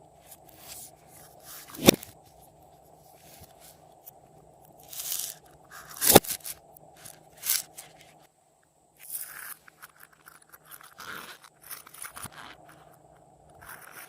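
Slime being pressed and worked by hand, giving scattered sticky clicks and short bursts. Two sharp pops stand out, about two seconds in and about six seconds in.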